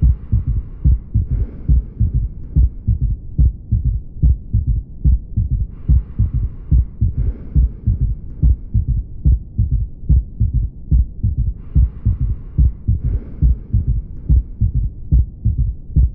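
Auscultated heart sounds with a third heart sound (S3), giving a three-part gallop rhythm: regular clusters of low thuds repeating about once a second. A soft hiss rises and fades about every six seconds.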